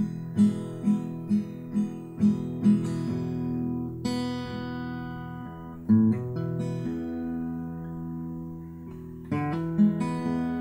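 Background music on acoustic guitar: picked notes about twice a second, then strummed chords left to ring.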